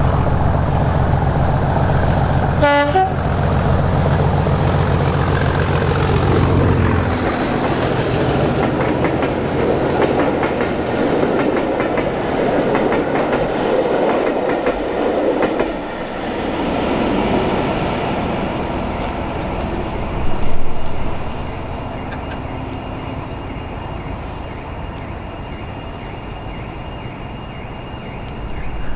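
Class 37 diesel locomotive 37518 passing: the deep throb of its English Electric engine dominates the first several seconds, with a brief horn blast about three seconds in. Then comes the rush and clatter of the train's wheels and coaches going by, which gradually dies away.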